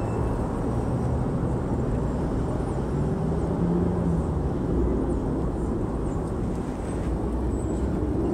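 A steady low rumble with a short low hum about halfway through and a few faint high chirps now and then.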